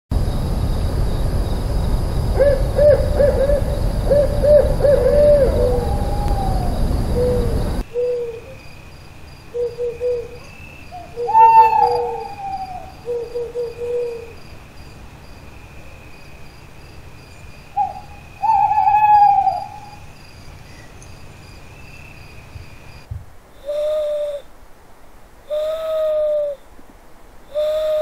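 Owls hooting, in several recordings one after another. It opens with quick runs of short hoots over a low rumble, then goes on to single hoots mixed with a few longer calls that slide down in pitch, and ends with three separate hoots about two seconds apart.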